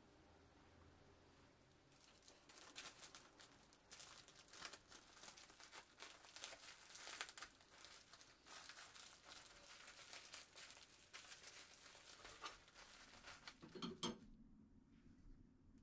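Faint crinkling of plastic cling film as it is wrapped tightly around a sandwich, starting about two seconds in and stopping abruptly near the end.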